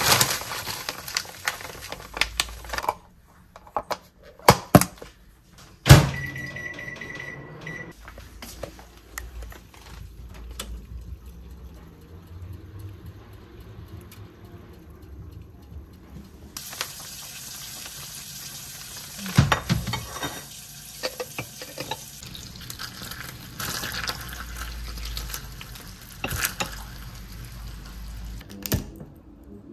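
Kitchen work sounds: sharp knocks and clinks of utensils, a steady beep lasting about two seconds, and from about halfway a steady hiss with more clinks.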